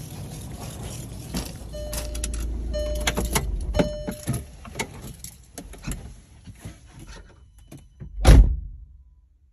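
Low rumbling with clicks and knocks, three short beeps in the first half, and about eight seconds in a single loud thump, like a car door being shut.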